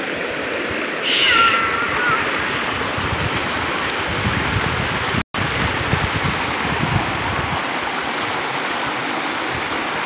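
Shallow rocky stream rushing steadily over boulders and small rapids. About a second in, a short high call slides down in pitch above the water, and the sound breaks off for an instant just after five seconds.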